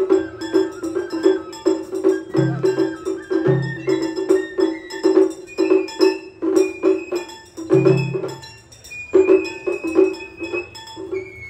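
Edo bayashi festival music: a shinobue bamboo flute plays a high melody that climbs and holds long notes in the second half. Under it run quick, even strokes on the shime-daiko drums, with a few deeper drum beats and metallic clinks of the atarigane hand gong.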